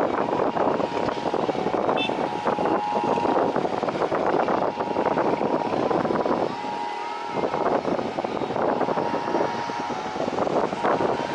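Jet airliner engines running with a steady whine, under heavy wind buffeting on the microphone.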